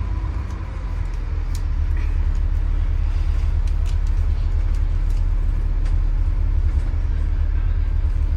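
Steady low rumble of a vehicle engine, with a few faint clicks.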